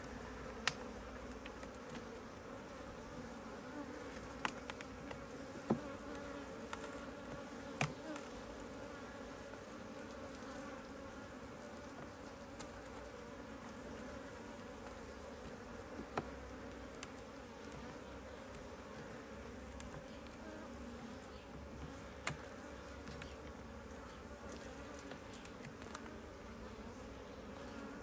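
Honey bees buzzing steadily around an open hive, with a few sharp clicks or knocks scattered through, most in the first several seconds.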